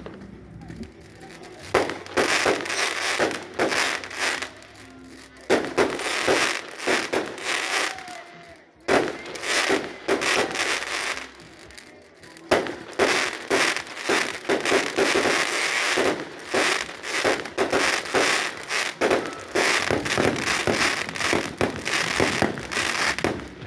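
Fireworks going off in dense, rapid volleys of bangs and crackles, with short lulls every few seconds.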